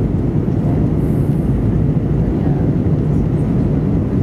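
Steady low rumble of cabin noise inside an Airbus A320 in flight, heard from a window seat over the wing.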